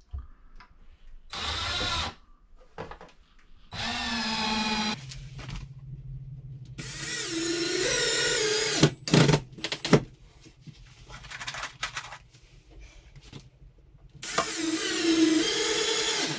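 Cordless drill driving drywall screws through the metal straps of a washing-machine outlet box into the wall studs. It runs four times in short spells of motor whine, the longest about two seconds, with a couple of sharp clicks in the middle.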